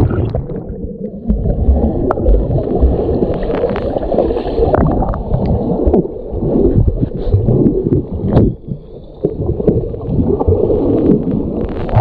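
Muffled gurgling and sloshing of water around swimmers in a waterfall pool, with low rumbles and scattered knocks.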